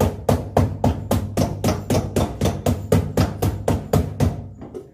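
Cobbler's hammer striking a shoe held sole-up on an iron last, a fast even series of blows about four a second that stops about four seconds in.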